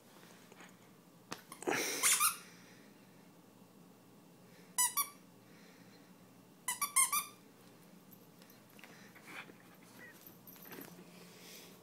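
Squeaky plush dog toy squeaking in three short bursts, about two, five and seven seconds in, as a German Shepherd puppy bites and tugs on it.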